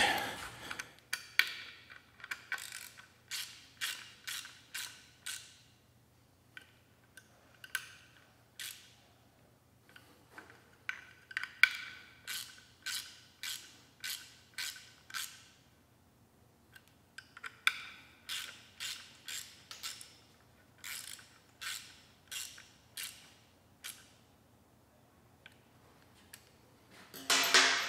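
Hand ratchet clicking as bolts are snugged up by hand, here the Allen bolts of the phase block on a Hyper9 electric motor. The clicks come about two a second in runs of strokes, with short pauses between runs.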